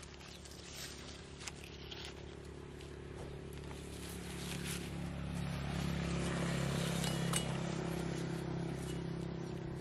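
A motor vehicle's engine hum swelling as it passes, loudest about seven seconds in and then easing off. Footsteps and rustling in dry leaves and grass, with scattered small clicks from handling.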